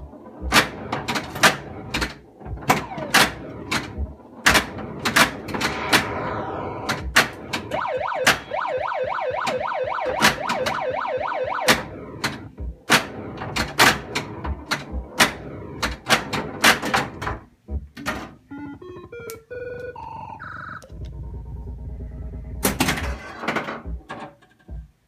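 1982 Bally Space Invaders pinball machine in play: rapid mechanical clacks of the flippers and the ball knocking around the playfield, over the machine's electronic sound effects. About three-quarters through, a falling series of electronic tones gives way to a low hum before the clacking resumes.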